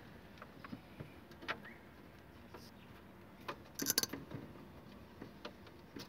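Scattered light clicks and knocks of a plastic refrigerator evaporator cover and its wiring being handled, with a louder brief clatter about four seconds in.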